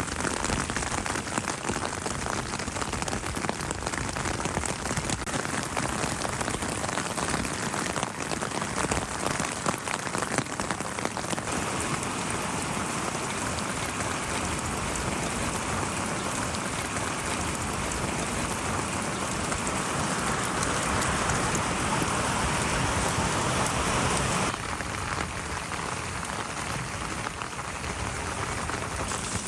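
Steady spring rain falling and pattering on surfaces. The sound changes character about a third of the way in and turns somewhat quieter near the end.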